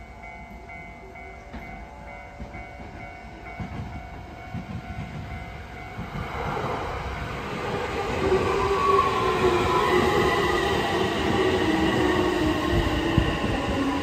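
JR West 225 series electric multiple unit approaching and running in alongside the platform, growing louder from about halfway through, its inverter motor whine falling in pitch as it slows, with wheel and rail noise. In the first few seconds, before the train is near, a level-crossing bell rings in a steady pulsing beat.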